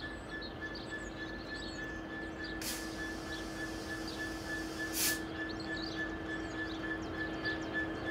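DB Cargo Class 66 diesel locomotive, an EMD two-stroke V12, approaching under power with a steady engine drone and a held whine, getting slightly louder. Two short hisses come about 2.5 seconds apart, and small birds chirp in the background.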